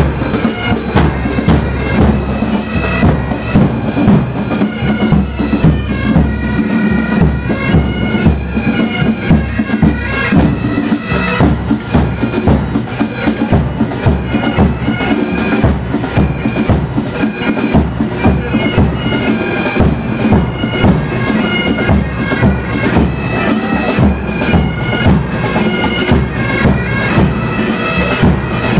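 Marching pipe band playing: bagpipes sounding a melody over their steady drone, with a regular drum beat.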